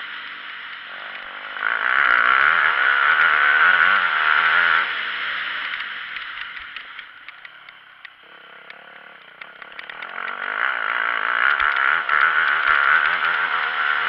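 Motocross bike engine under hard throttle for a few seconds, dropping away to a low a little past the middle as the rider rolls off, then pulling loud again near the end. Short knocks from the bike over the rough track come through now and then.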